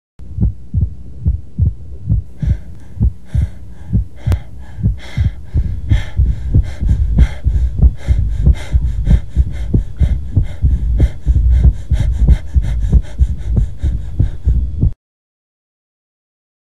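Soundtrack pulse: deep, throbbing low thumps, about two a second over a low hum, with a higher rattling layer joining after a couple of seconds. The thumps grow denser about midway, and the whole sound cuts off suddenly near the end.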